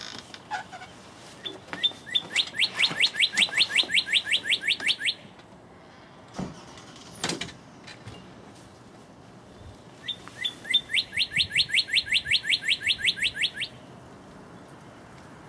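Male northern cardinal singing two phrases a few seconds apart. Each opens with a few separate whistles and runs into a fast trill of repeated down-slurred notes, about seven a second, lasting around three seconds.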